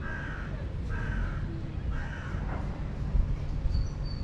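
A crow cawing three times, about a second apart.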